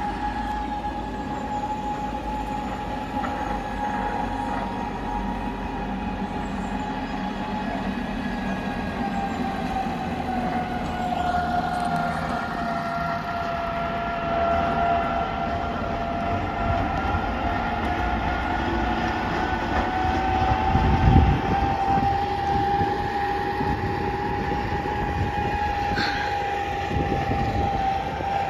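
Snowdon Mountain Railway diesel rack locomotive running as it pushes its carriage up the grade, with a steady high whine that sags a little in pitch partway through and then rises again. A brief low rumble about three quarters of the way through is the loudest moment.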